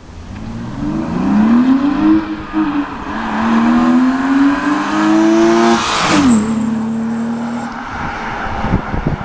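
BMW E36 323i's 2.5-litre straight-six, breathing through an ITG intake filter and a Supersport exhaust, revving hard under acceleration. The pitch climbs twice, drops sharply about six seconds in, then holds lower before fading.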